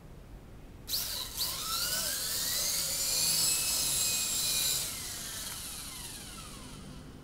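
DH 9100 RC helicopter's small electric motors and rotor blades spinning up suddenly about a second in, with a whine that rises in pitch. The whine then drops and winds down with a falling pitch, which the flier puts down to a flat battery.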